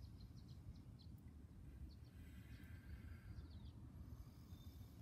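Faint birdsong: short runs of quick, high chirps near the start and again in the middle, over a low steady rumble.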